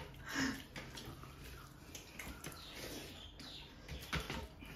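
Eating sounds: hands squishing rice and fish curry on steel platters, with chewing and lip smacking and a few light clicks near the end.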